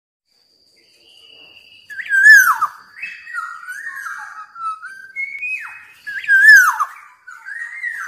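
Black-naped oriole (kepondang) singing in fluty whistles. Two loud slurred phrases swoop down in pitch, about two seconds in and again near the end, with quieter varied whistled notes between them.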